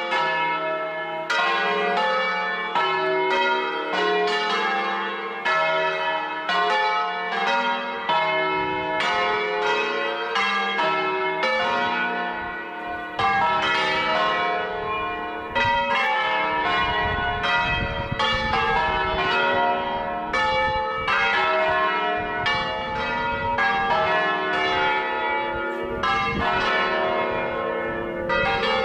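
Several church bells of a belfry pealing together, struck in quick succession at different pitches, each strike ringing on under the next.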